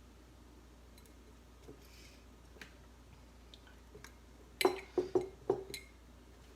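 A glass quart jar being packed with cucumber slices: faint scattered taps, then a quick run of four or five sharp knocks and clinks against the glass about two-thirds of the way through.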